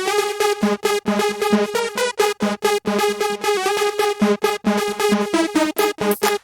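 Electronic dance music in the 1990s Valencian 'bakalao' style: a fast, chopped synth riff stabbing on one held note.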